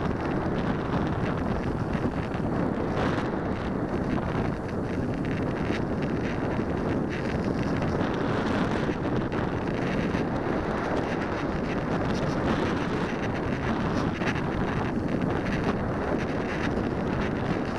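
Steady rush of airflow buffeting the microphone of a camera riding on an unpowered Alula Evo discus-launch glider in flight; no motor is heard.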